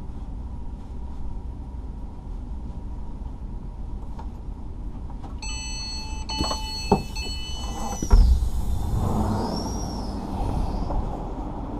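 Door of a Class 444 Siemens Desiro train at a standstill: beeping of several steady tones and a couple of sharp clicks, then the sliding door opening with a loud thump about eight seconds in and a rush of noise. The low hum of the stationary train runs underneath.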